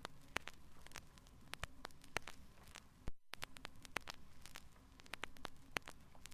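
Vinyl LP surface noise from a worn record in poor condition: irregular clicks and pops over a faint hiss and low hum. Drops briefly to dead silence about three seconds in.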